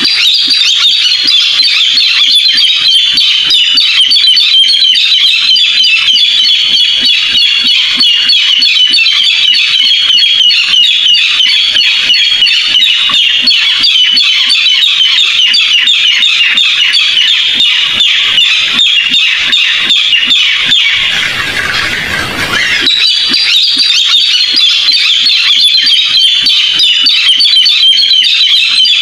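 Barred rail calling: a continuous, loud stream of rapid, harsh, high-pitched notes, briefly broken off about three-quarters of the way through before resuming.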